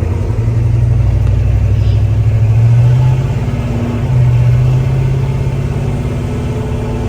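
Small-block Chevy V8 of a C10 pickup pulling the truck along. The engine note climbs for about three seconds, drops off briefly as it shifts, then picks up again and settles.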